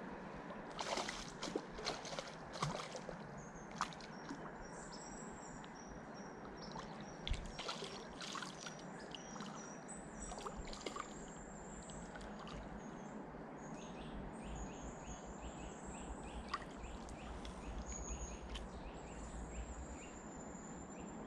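Scattered clicks and rustles from handling an ultralight spinning rod and reel over a steady outdoor hiss, with one louder knock about seven seconds in. Thin, high whistling calls come and go through the middle and end.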